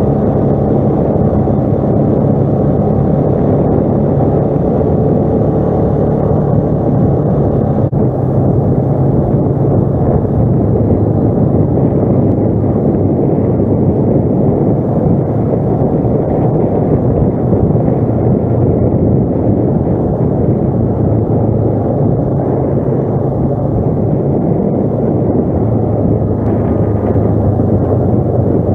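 ATV engine running steadily under way, loud and close, its pitch dipping and rising slightly a couple of times as the throttle changes.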